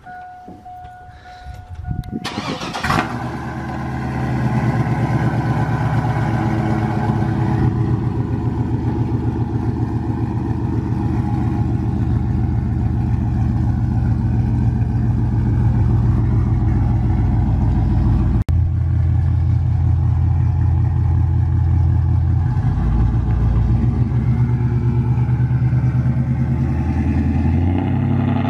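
Lifted Chevrolet Silverado pickup's engine started after a steady tone of about two seconds. It catches about three seconds in and settles into a loud, steady, pulsing idle. About two-thirds of the way through there is a click and the low exhaust note shifts as the truck pulls away.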